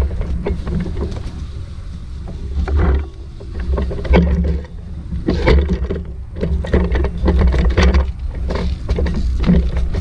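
Irregular rustling and knocking over a constant low rumble on the microphone.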